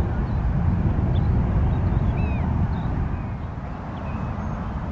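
Jet airliner's low rumble, easing off a little after about three seconds, with short bird calls scattered over it.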